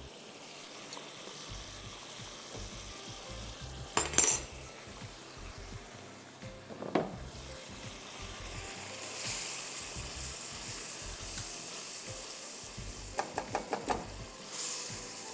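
Chicken pieces in tomato sauce sizzling in a frying pan over a gas flame, the sizzle growing louder after the middle. A utensil clinks sharply against a pan about four seconds in, knocks again a few seconds later, and taps quickly several times near the end.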